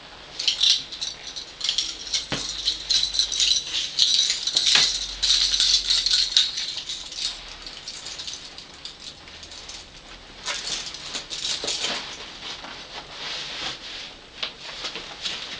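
Handling noise of a jointed coat-hanger prop being folded up: dense, irregular rattling and clicking of its shiny fittings, mixed with a leather coat rustling. It comes in two busy stretches with a quieter lull in the middle.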